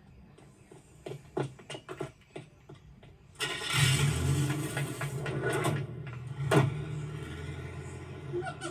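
A few sharp clicks, then a car engine starts about three and a half seconds in and keeps running with a steady low hum; one sharp knock comes about halfway through the running.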